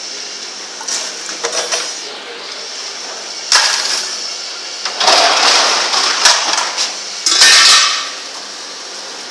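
Empty PET plastic bottles clattering and crinkling in loud bursts as armloads are thrown into the feed chamber of a vertical bottle baling press, about three bursts from a third of the way in until near the end, over a steady high whine.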